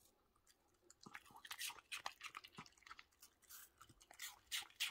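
Small dog crunching a piece of raw apple: quick, crisp chewing crunches that start about a second in and go on irregularly.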